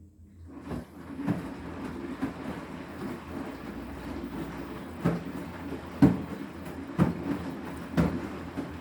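Washing machine drum turning during the rinse with two pillows inside, starting up under a second in: a churning wash with the heavy, wet pillows thudding against the drum about once a second.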